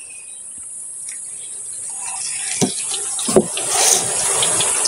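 Hot oil sizzling as a batch of banana fritters fries, a steady hiss that grows louder, with two dull knocks a little past halfway.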